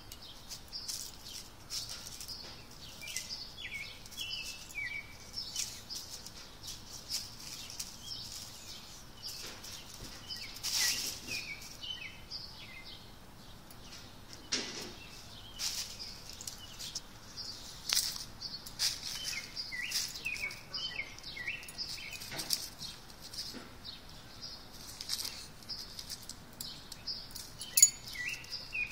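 Dry oak leaves rustling and crackling in short irregular bursts as a small dog noses and paws through a pile of them. A bird chirps repeatedly in the background in clusters of short falling notes.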